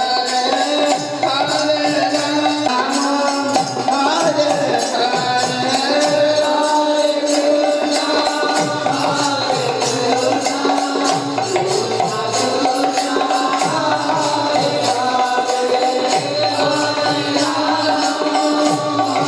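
Devotional music with singing over a drum and jingling cymbals keeping a steady, fast beat, with held tones underneath.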